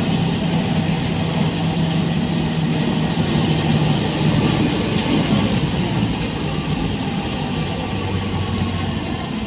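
Engine and running noise of a Mercedes-Benz O405N2 city bus, heard from inside the passenger cabin. The engine note holds steady, then drops lower about halfway through.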